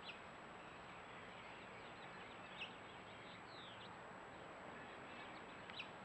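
Faint bird chirps, a few short sharp calls and quick falling notes, over a steady background hiss.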